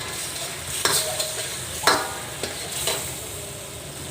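Stir-frying in a pan: food sizzling in hot oil while a metal spatula stirs it, with three ringing clanks of the spatula against the pan about a second apart, the middle one the loudest.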